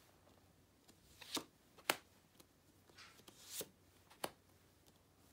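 Tarot cards being drawn from a fanned spread and laid down on a cloth: a few brief slides of card stock and sharp clicks, the sharpest about two seconds in.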